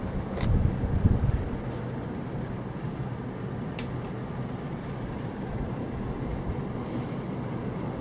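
Many ceiling fans running together: a steady whoosh of moving air, with low gusts buffeting the microphone in the first second or so and two faint clicks.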